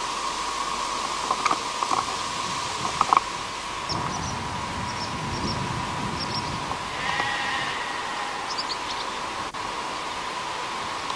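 A sheep bleats once, about seven seconds in, over a steady hiss and high hum on the tape. A few sharp knocks come early on, and small high chirps are scattered through the middle.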